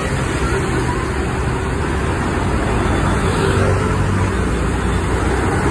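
Road traffic with a coach bus engine running as the bus pulls away: a steady low rumble that builds slightly toward the end.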